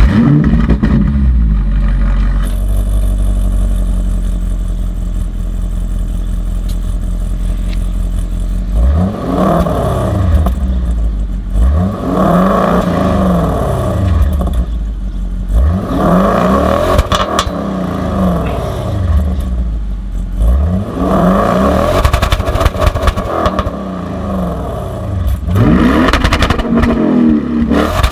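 Audi RS6 Performance's 4.0 TFSI twin-turbo V8 through an Akrapovic exhaust, starting up and idling steadily, then revved about nine seconds in. The revs come in four blips, each rising and falling over two to three seconds.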